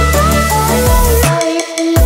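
Background music with a strong bass beat and a sliding lead melody; the bass drops out briefly near the end, then comes back in.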